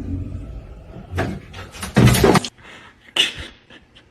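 A pet animal vocalising in three short bursts, the loudest about two seconds in, over a low rumble at the start.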